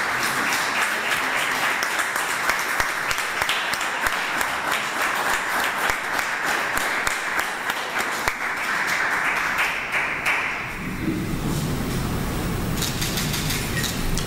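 Audience applauding, a dense patter of many hands clapping that dies away after about ten seconds into a low steady rumble.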